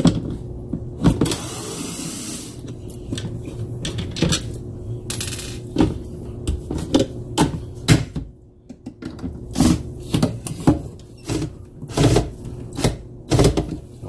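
Hard plastic knocks and clatter as a vacuum cleaner's clear dust bin and cyclone are handled and unscrewed with a cordless drill/driver, with two short runs of the driver's motor about a second in and about five seconds in.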